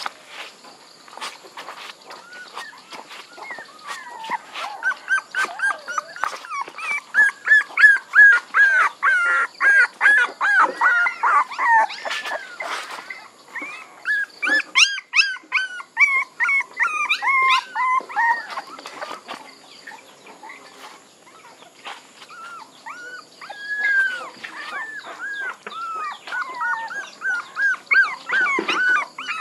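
Young puppy crying: long runs of short, high-pitched cries, two or three a second, loudest in the first half, easing off for a few seconds past the middle and then starting again.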